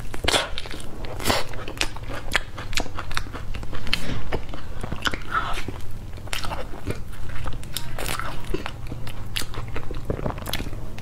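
Close-miked eating of soft durian flesh: biting into the pods and chewing, heard as many short, irregular mouth clicks.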